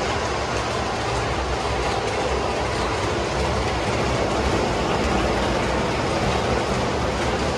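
MTH O gauge R62A subway model train running past on its track: a steady rumble and clatter of the wheels and motors, a little louder around the middle as the cars pass close.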